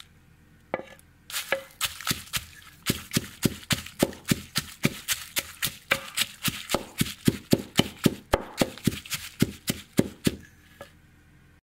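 Wooden pestle pounding roasted dried chillies and rock salt in an earthenware mortar: a steady run of knocks, about four to five a second, that stops shortly before the end. This is the start of pounding a Thai chilli paste, the chillies still whole and coarse.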